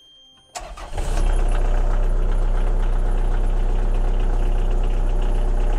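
Sherp amphibious ATV's diesel engine starting after glow-plug preheat: it cranks briefly about half a second in, catches, and within a second settles into a steady idle.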